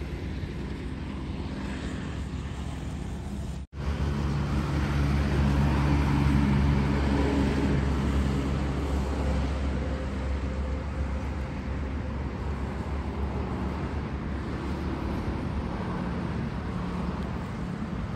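A motor vehicle's engine humming steadily. It grows louder to a peak about six seconds in and eases off again, as a vehicle passing close by would. The sound cuts out for an instant near four seconds in.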